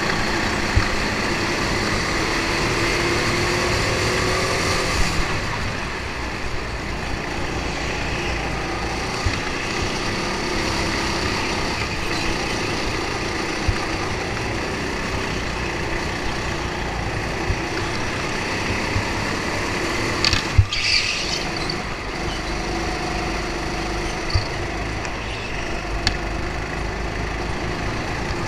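Racing go-kart running at speed around the track, its pitch climbing over the first few seconds, with a brief sharp noise about twenty seconds in.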